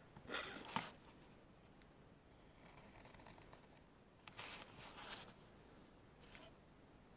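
Pen scratching over a thin wooden board as lines are drawn along a plastic ruler: a few short strokes, the loudest near the start and around four to five seconds in, with fainter ones between.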